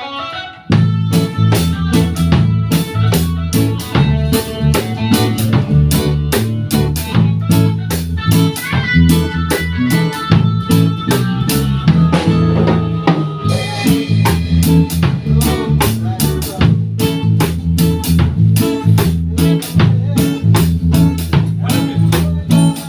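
A band playing live: drum kit and guitar over a low, moving bass part, kicking in about a second in, with dense, regular drum hits throughout.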